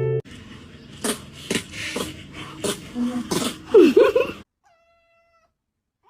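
A cat meowing a few short, bending calls about three and a half to four seconds in, among scattered knocks and rustles. The sound cuts off suddenly after about four and a half seconds.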